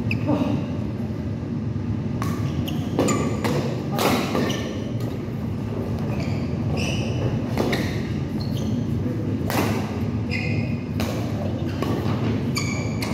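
Badminton doubles rally: sharp racket hits on the shuttlecock and footfalls about every second or two, with short squeaks of court shoes on the floor, over a steady low hum in the hall.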